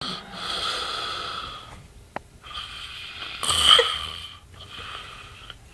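A man snoring: four long, noisy breaths, the loudest about three and a half seconds in, with a short click about two seconds in.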